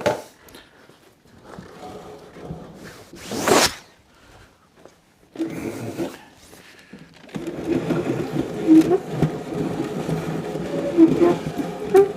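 An upholstered chair being turned round on the workbench, scraping and grinding against the surface from about seven seconds in, an unpleasant grating noise.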